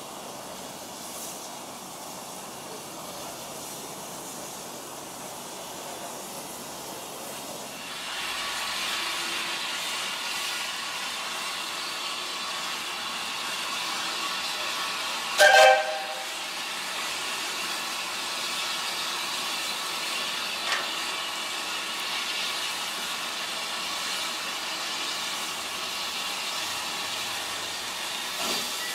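Small saddle-tank steam locomotive letting off steam: a steady hiss that starts about eight seconds in, with one short, loud whistle blast about halfway through.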